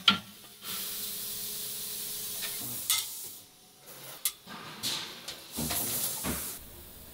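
A sharp click as the spot welder fires, then a steady hiss with a faint hum for about two and a half seconds. From about four seconds in, a few light clinks as stainless steel sink strainers are set onto a stack, with a short burst of hiss near six seconds.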